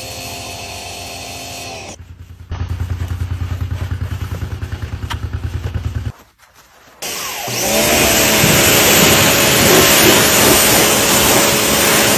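Machine noise in several cut-together pieces. First a steady motor hum, then an engine pulsing about ten times a second, then after a short break a loud, steady rushing noise.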